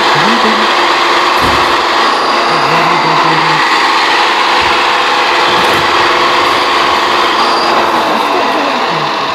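Farm tractor engine running hard at steady high revs as the tractor, hitched to a trailer, strains with its wheels dug into soft ground; the engine note sags near the end as the revs drop.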